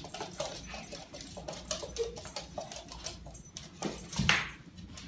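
A puppy's claws clicking and skittering on a hardwood floor in quick, irregular ticks, with one louder thump about four seconds in.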